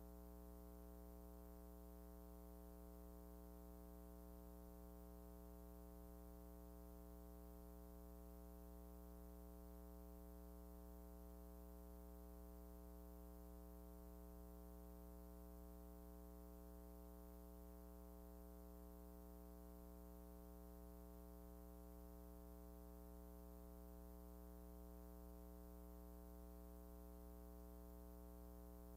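Near silence, with a faint, perfectly steady electrical hum made of many evenly spaced overtones and a little hiss on the soundtrack.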